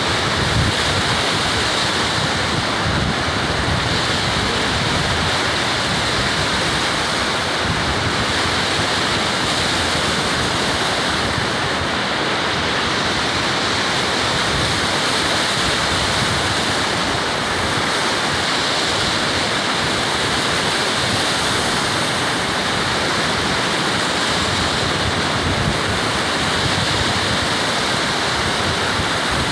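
Steady rush of ocean surf breaking, with wind gusting across the microphone.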